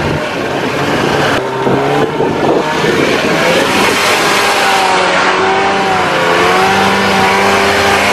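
Arctic Cat Panther 570 two-stroke twin snowmobile engine running under throttle as the sled spins in circles on its side, its pitch wavering a little at first and then holding steady, with the track churning snow.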